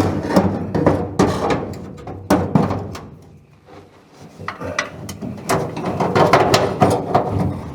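Metal clunks, knocks and scrapes as a brake and clutch pedal assembly is manoeuvred into place against a truck's firewall, irregular and sparser in the middle, with a dense run of knocks in the last couple of seconds.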